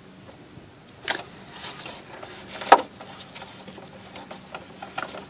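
Hands working at a vehicle's front airbag crash sensor and its plastic connector, trying to pull it free: scattered clicks and knocks, with one sharp, loud click a little under three seconds in.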